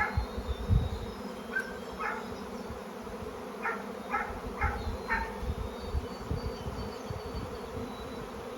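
A swarm of thousands of honeybees in flight, a steady droning buzz. The colony has just swarmed out of its hive.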